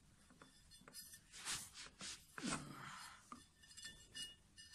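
Light metallic clinks and a scrape as the opened aluminium housing halves of a viscous fan clutch are handled on a tile floor, with a thin metallic ringing near the end.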